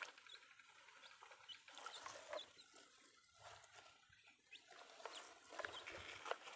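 Near silence with faint bird calls in the background, such as chickens clucking, and a few light taps and scrapes of plastic toy trucks being moved in the mud.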